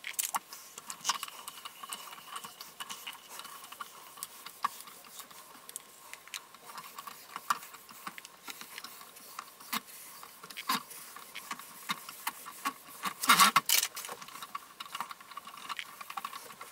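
Hands peeling the adhesive backing off a magnetic build-plate base sheet and smoothing it onto a 3D printer bed: quick scratchy rustles and taps, with a faint steady tone underneath. A louder cluster of scrapes comes about 13 seconds in.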